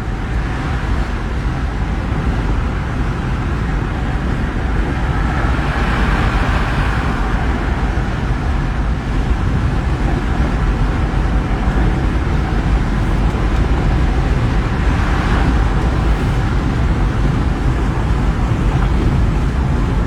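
Steady road and engine rumble of a moving car heard from inside the cabin, swelling slightly twice.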